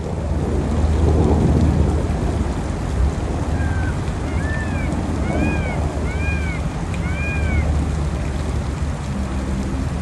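Wind buffeting the microphone, a steady low rumbling noise throughout. In the middle comes a run of about six short, high, arched chirps.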